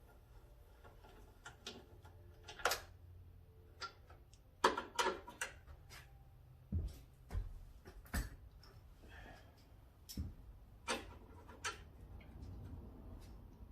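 Irregular metallic clicks, clinks and a few dull knocks of hand tools and loose hardware, from work on a motorcycle during removal of its fuel tank.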